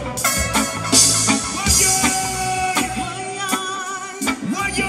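Live reggae band playing, with a male lead singer singing into a microphone over drums, bass, keyboard and guitar. The bass drops out for about a second past the three-second mark, then comes back in.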